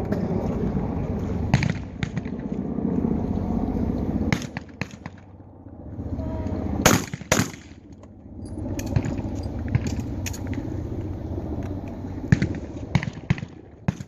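Shotgun shots on a trap range: a single shot early on, then two quick shots about half a second apart near the middle, first and second barrel fired at one target. A steady low rumble runs between the shots.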